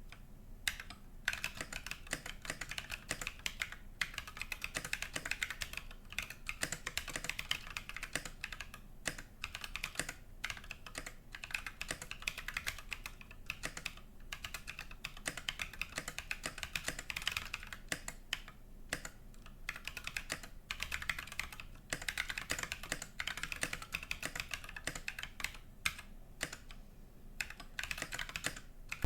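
Continuous fast typing on a custom mechanical keyboard with Holy Panda tactile switches and tall SA-profile keycaps. The dense clacking stops for short pauses several times between bursts.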